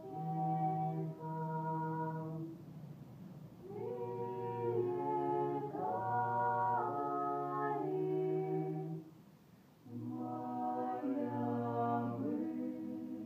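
Small group of men and women singing a cappella in harmony, holding long chords, with a brief break about nine seconds in before the singing resumes.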